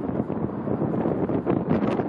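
Wind buffeting the camera's microphone: a steady, gusty rumble with irregular flutter.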